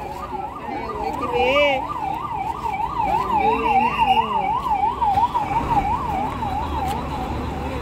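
Warbling vehicle siren of the motorcade's escort, sweeping rapidly up and down about three times a second, fading out near the end.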